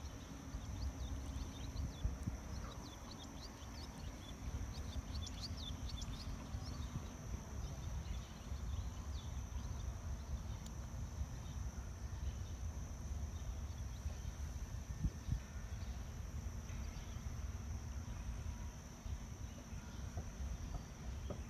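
Wind buffeting the microphone with a steady low rumble, and a few faint high chirps between about three and seven seconds in over a thin steady high hiss.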